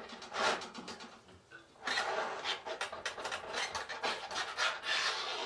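A utensil scraping and stirring across the bottom of a cast iron skillet full of thick milk gravy, in rapid repeated strokes. There is a brief lull about a second in, then steady scraping resumes.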